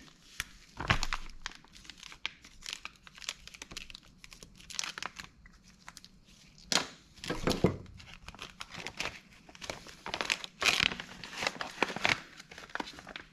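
Crinkling and rustling with scattered clicks and knocks as steel connecting rods are handled and set on a scale for weighing.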